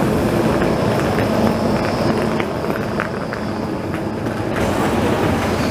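Tram passing on street track: rolling rumble with a steady motor whine that fades about halfway through as it moves away, leaving general street traffic noise.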